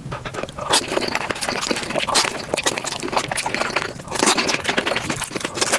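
Close-up eating sounds: rapid, irregular chewing and crackling bites of food, with no pause.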